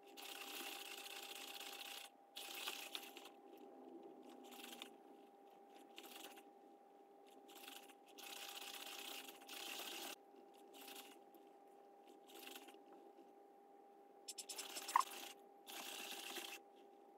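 Sony Aibo ERS-1000 robot dogs shifting and turning, their joint motors whirring in short, quiet bursts over a faint steady hum, with a few light clicks near the end.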